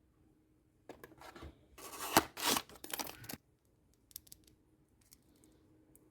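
Blind-box packaging being opened by hand: a rough, noisy ripping or cutting sound starts about a second in and lasts about two and a half seconds, loudest in the middle. Light clicks and rustles of the packaging follow.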